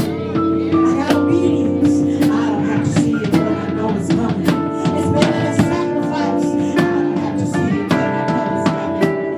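Live gospel band playing with a steady drum beat, guitar and sustained held notes.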